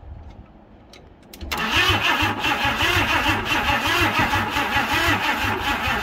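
Ford Cortina 2.3 V6 engine cranking over on its starter motor without firing, starting abruptly about a second and a half in with an even pulsing churn and a starter whine. This is a spark check with a plug pulled, and no spark shows.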